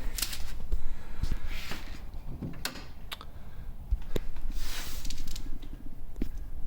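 Scattered clicks and knocks with a few brief scraping hisses and a low rumble: a vintage wooden audio console being handled.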